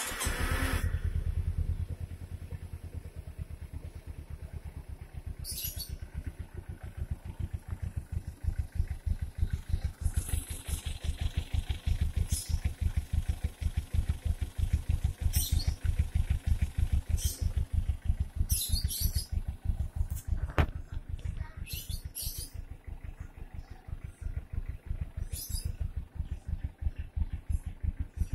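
Kawasaki Ninja 250R parallel-twin engine starting on the electric starter and settling into a steady idle. It runs quietly after its cam chain tensioner was adjusted at about 35,000 km.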